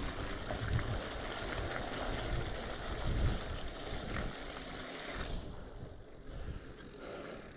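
Rushing creek water, swollen with rain runoff, with low uneven wind rumble on the microphone. The water's hiss falls away a little over five seconds in.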